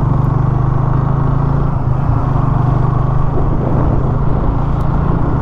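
Motorcycle engine running at a steady pace while riding, with a constant rush of wind and road noise.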